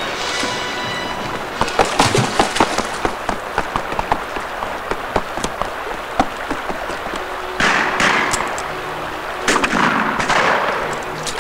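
Gunfire sound effects: a rapid, irregular run of sharp cracks, then two louder crashing bursts about eight and ten seconds in, over a faint held note of music.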